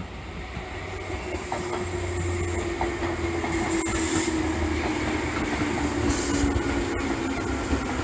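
Tobu 10000-series (10050-type) electric train running past on a far track, its rumble growing louder over the first few seconds. A low steady hum sinks slightly in pitch, with a few clicks of wheels on the rails.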